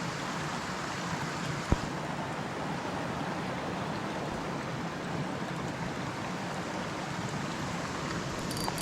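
Creek water running steadily over rocks, an even rushing. A single sharp click about two seconds in.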